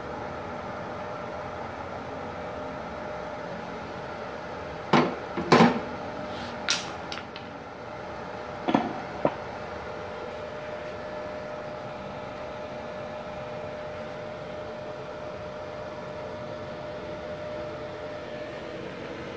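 Gasless MIG welding machine's cooling fan running steadily with a faint whine. Between about five and nine seconds in, a handful of sharp metal knocks and clanks, the loudest two close together near the start, as the welded steel test plate is handled on the steel workbench.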